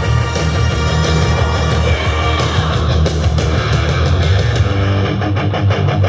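Loud rock music with electric guitar, in the heavy metal style.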